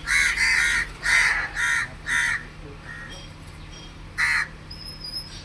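Crow cawing: five harsh caws in quick succession, then one more caw about four seconds in.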